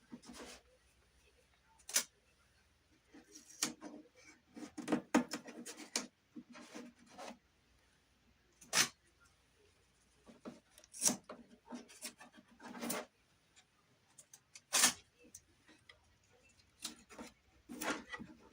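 Hand work on wooden trim: bouts of rubbing and scraping, broken by a few sharp taps or clicks.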